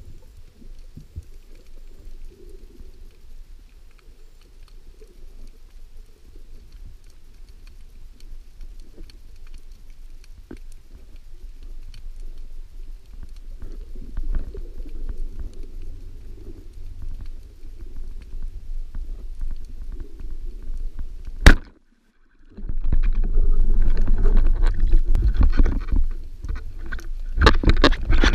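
Underwater sound of a band-powered speargun hunt: a low water rumble, then a single sharp crack about three-quarters of the way through as the speargun fires, followed by loud churning and clattering as the speared mullet is handled on the shaft.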